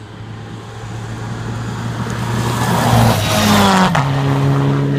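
Rally car engine at full throttle on a gravel road, growing louder as it approaches and passes close about four seconds in, its pitch dropping as it goes by, with a rush of tyre and gravel noise at the pass. A second rally car follows close behind.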